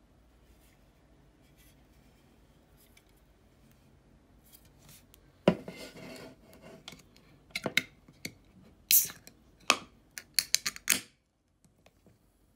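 An aluminium beer can is set down on a table with a sharp knock, then fingers click and scrape at its pull tab to open it: a run of sharp clicks and short scrapes.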